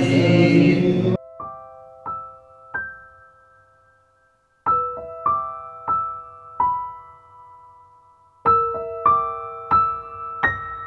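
Slow background piano music: single notes and small chords struck a few at a time and left to ring out, with a brief silence about four seconds in. It opens with voices chanting that cut off abruptly about a second in.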